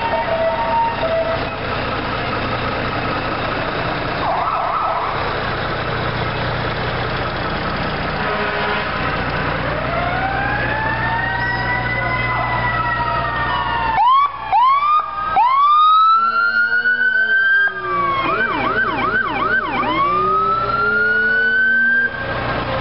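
Electronic sirens on fire trucks and an ambulance. Nothing clear stands out for the first few seconds. From about ten seconds in, a slow wail rises and falls, then come several quick rising sweeps, a short burst of fast yelp and another long rising wail. Steady truck-engine noise runs underneath.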